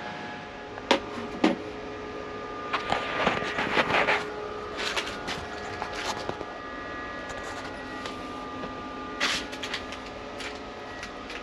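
Steady hum of several held tones from a running 12-volt power supply (an IntelliPower 9100 converter-charger), which is a little noisy. Over it come knocks and rattles of wooden panels and hardware being handled, with two sharp knocks about a second in and a flurry of clatter around three to four seconds in.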